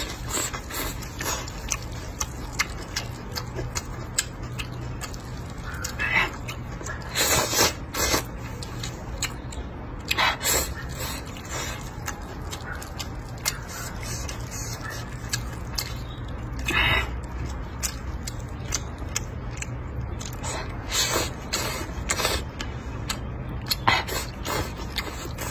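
Close-up eating sounds of a man eating noodles with shredded pork and green peppers: chewing, broken by several short, loud slurps as he sucks up mouthfuls of noodles.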